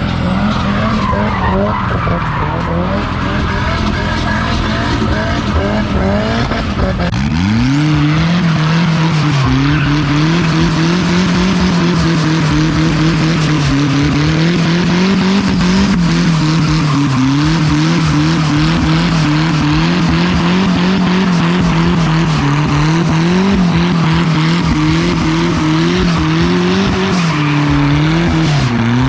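Turbocharged Nissan Hardbody pickup drifting: the engine climbs sharply about seven seconds in and is then held high, its pitch wobbling up and down as the rear tyres, locked together by the welded differential, spin and skid continuously.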